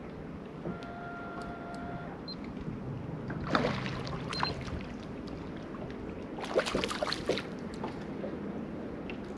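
Small waves lapping against a fishing boat's hull in the wind, with two short bouts of splashing: one about three and a half seconds in, and another around seven seconds in.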